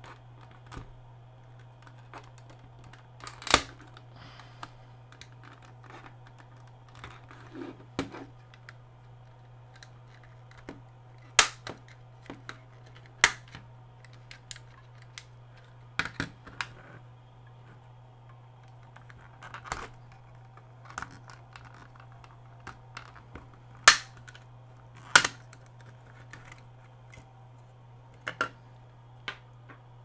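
Plastic case halves of a Dish Network 21.0 IR/UHF Pro remote being pried apart: irregular sharp snaps of the snap-fit clips releasing, with lighter clicks and rattles of handling in between. A handful of the snaps are much louder than the rest.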